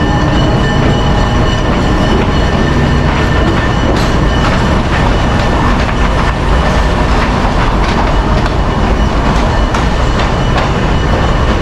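PeruRail passenger train rolling slowly past at close range: a steady loud rumble with a thin high whine, and from about four seconds in the wheels clicking over the rail joints as the carriages go by.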